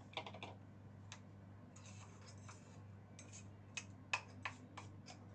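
Light clicks, taps and short scrapes of a metal spoon against a stainless-steel mixer-grinder jar as ground fried-onion paste is scraped out, over a faint steady low hum.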